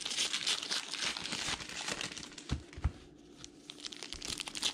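Trading-card pack wrapper crinkling and tearing as it is opened by hand, with two short low thumps about two and a half seconds in. The crinkling eases off briefly just after three seconds, then picks up again near the end.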